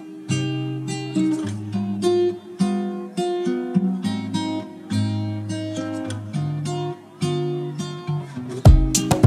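Background music: an acoustic guitar picks a melody of plucked notes, and heavy drum beats with deep bass come in near the end.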